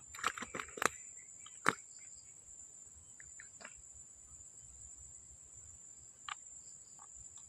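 Steady, high-pitched drone of insects, with several sharp clicks in the first two seconds.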